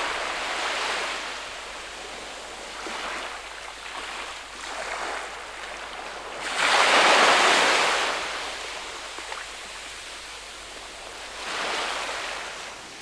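Ocean waves washing in and drawing back in slow surges, the biggest coming about seven seconds in.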